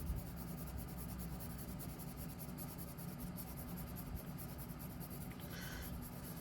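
Graphite pencil shading on paper: a steady, faint scratching of quick, closely spaced strokes, with one brighter scratch near the end.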